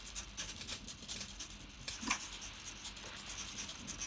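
Hobby servo motors tilting a ball-and-plate balancing platform, making rapid, irregular ticking ("suk suk suk") as they keep correcting the plate to hold the ball on its set point.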